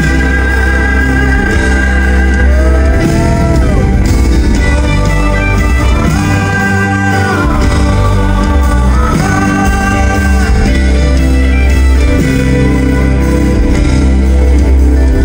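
Live band music, loud and steady with a heavy bass. Several long held notes slide up and back down in pitch, about three times.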